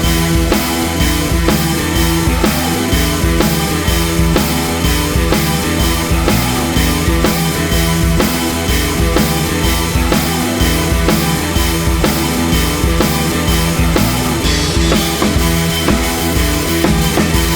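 Rock background music with a steady driving drum beat.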